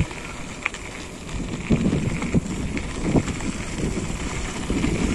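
Wind rushing over a body-strapped phone's microphone during a bicycle ride, with a few short knocks about halfway through.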